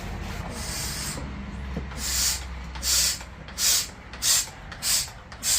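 Hand-pumped vacuum oil extractor being pumped to draw engine oil out. There is one longer hiss of air about half a second in, then from about two seconds in a short hiss with each stroke, about one and a half a second.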